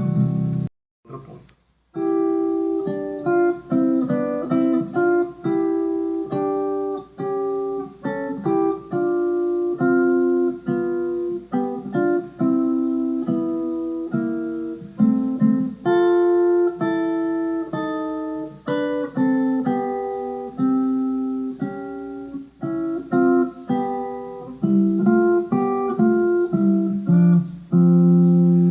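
Guitar playing a reharmonized chord progression, one chord after another, each struck and left to ring briefly. It breaks off for about a second near the start.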